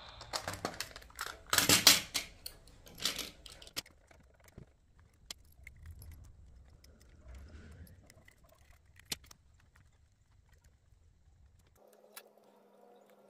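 Metal clinks and clatter from a die-cast model locomotive and its small parts being handled as it is taken apart. The clatter is busiest in the first few seconds, then thins to scattered faint clicks, and a low steady hum comes in near the end.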